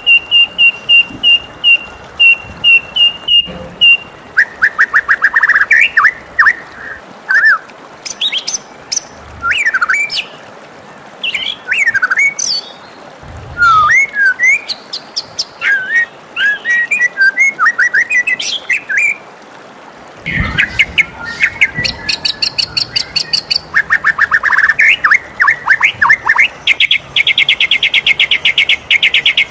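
White-rumped shama singing a loud, varied song: a run of evenly repeated high notes at the start, then whistled phrases that glide up and down, with fast trills about midway and again near the end.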